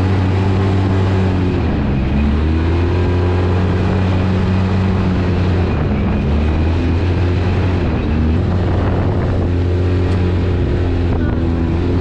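Polaris RZR 800 side-by-side's twin-cylinder engine running while driving, its pitch falling and climbing again several times as the throttle is let off and reapplied. The engine has just had its worn rod bearings replaced.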